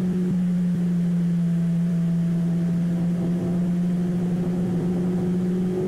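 Motorcycle engine running at a steady speed, one held note that sags slightly midway and rises a little again near the end.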